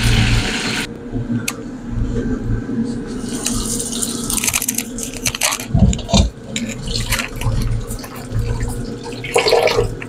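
Battered chile relleno frying in a saucepan of hot oil: sizzling, with a dense hiss that cuts off about a second in and scattered crackling pops from about four seconds on.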